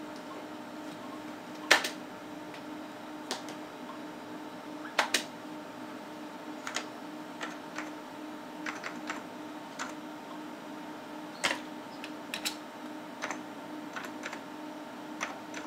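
Computer keyboard keystrokes on an Amiga 3000, typed slowly and unevenly one key at a time, with one or two sharper key presses standing out. A steady low hum runs underneath.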